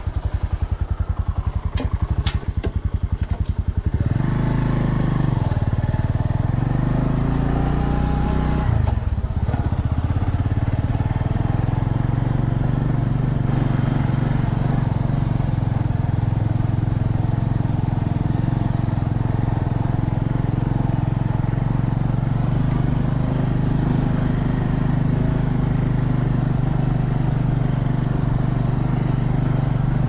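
Bajaj Boxer's single-cylinder four-stroke engine running just after being restarted from a drowning in swamp water. It idles with quick, even firing pulses, is revved up and down twice about four to nine seconds in, then holds a steady, higher speed.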